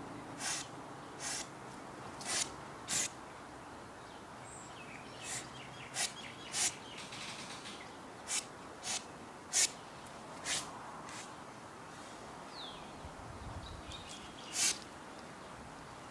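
Short sharp swishes from the strikes of a kung fu form, about a dozen at uneven intervals.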